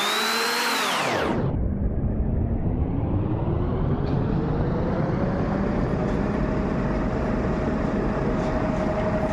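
Electronic sweep sound effect: a whistling tone over a hiss bends down and cuts off with the upper hiss about a second and a half in, then a lower tone slowly rises and holds steady over the noise.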